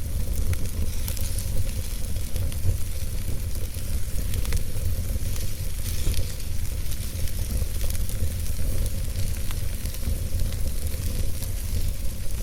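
Wood fire burning in a fireplace: a steady low rumble and hiss of the flames, with many small crackles and pops from the burning logs scattered throughout.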